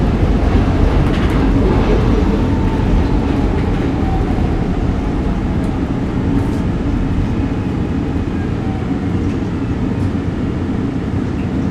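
SEPTA M4 subway car running and slowing as the train pulls into a station. The rumble eases gradually, with a faint whine falling in pitch.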